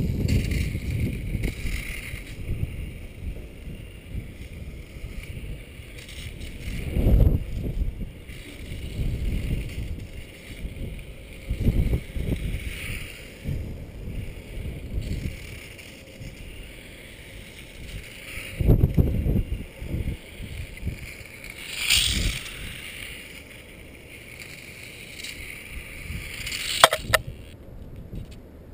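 Silverlit RC toy motorcycle's small electric motor whining as it drives around on asphalt, the whine swelling as it passes close, over irregular low rumbles; a sharp click near the end.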